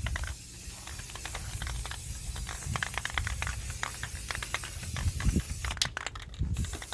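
Aerosol spray paint can spraying primer in short hissing bursts, with rapid irregular clicking over a low rumble. The hiss cuts off sharply near the end.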